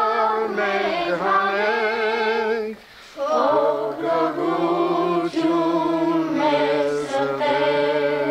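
A group of children singing an Armenian folk song together without accompaniment. There is a short break for breath about three seconds in, and a lower voice joins in the second phrase.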